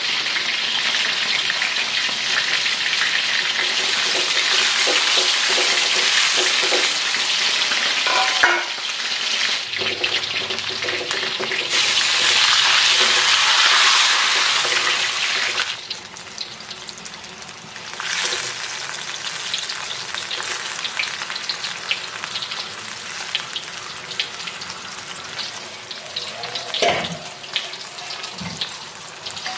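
Food sizzling in hot oil in a nonstick wok, stirred with a spatula. The sizzle gets louder about twelve seconds in as water is poured into the wok, then drops to a quieter bubbling sizzle after about sixteen seconds, with a few spatula clicks and a knock near the end.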